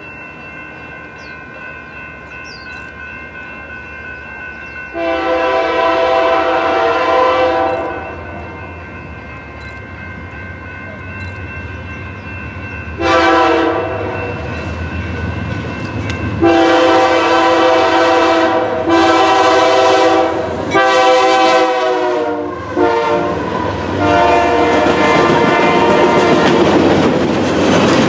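Diesel freight locomotive's multi-note air horn sounding about six blasts as the train approaches, the first a long one of about three seconds. In the last few seconds the train arrives and its wheels clatter over the rail joints as the well cars roll past.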